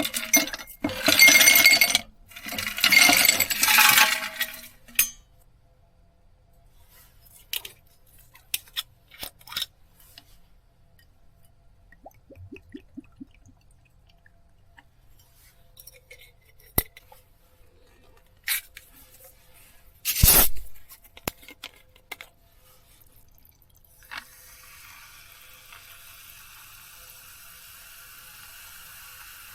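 Clinks and knocks of small hard objects such as dishes and utensils being handled, after a few loud scraping rustles at the start, with one louder knock about twenty seconds in. A faint steady hiss begins near the end.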